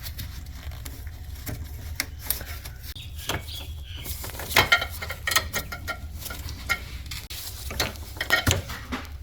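Clicks, knocks and rattles of hands and parts at work: a plastic retaining clip and the charcoal canister being worked loose, over a steady low hum. The loudest clatter comes about four and a half to five and a half seconds in and again around eight seconds.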